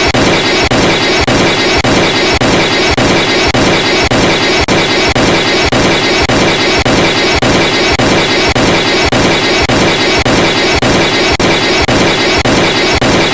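Emergency alert alarm sounding loud and noisy, a dense tone that pulses in a rapid, even rhythm without a break.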